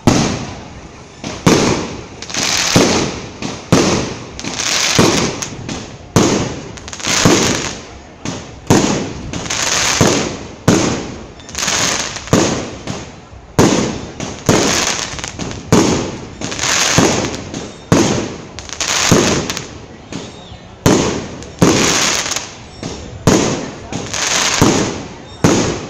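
Aerial fireworks bursting overhead in quick succession, a little over one bang a second. Each sharp bang trails off over about a second.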